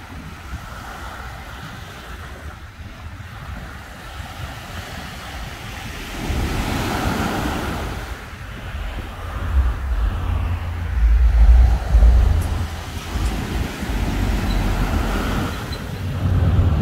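Small ocean waves breaking and washing up a sandy beach in a few swells, with gusts of wind rumbling on the microphone that get stronger in the second half, loudest about two-thirds of the way through.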